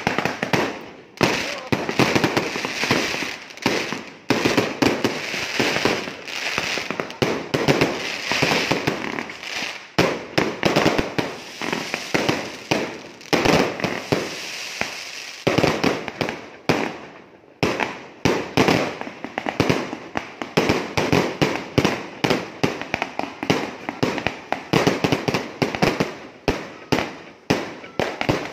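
Fireworks launched from the street: a rapid, almost unbroken run of shots and bangs from aerial bursts, with a brief lull about seventeen seconds in.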